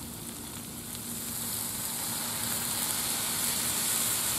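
Water sizzling into steam on a hot Blackstone flat-top griddle around frying steak, onions and peppers, getting louder about a second in. The water is added to make steam to melt the cheese.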